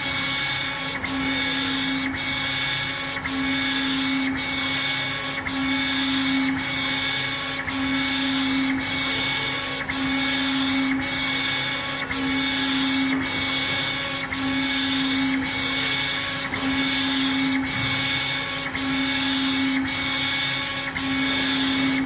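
CO2 laser engraving machine raster-engraving stone: the laser head's stepper motors whine as the gantry sweeps back and forth, about one pass a second, the pitch changing with each direction and a faint click at each reversal, over a steady machine hum.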